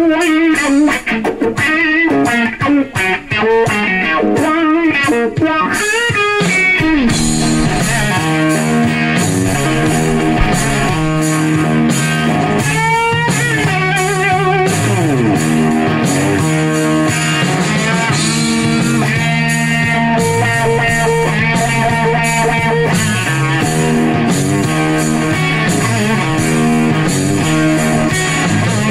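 Guitar instrumental: a lead guitar plays bent, wavering melody lines on its own, then about seven seconds in a steady bass line and rhythmic backing come in beneath it.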